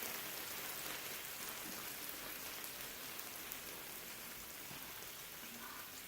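Thin-sliced lamb sizzling on a grill, a steady crackling hiss that slowly grows quieter.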